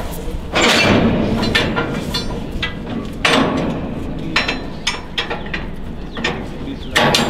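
Metal clanks, knocks and ratchet-like clicks of hand-tool work on a freight car's wheel truck, with a few short louder bursts of noise, the first about half a second in.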